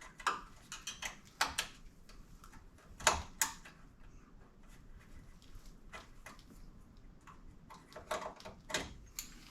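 Plastic retaining clips being pried out of a plastic grille trim piece: scattered light clicks and snaps. The sharpest comes a little after three seconds in, and a quick run of clicks follows near the end.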